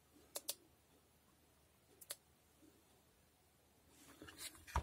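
Faint sharp clicks and taps from a subwoofer amplifier circuit board being handled: two close together about half a second in, one at about two seconds, then a run of taps and rustling near the end, finishing in a louder knock.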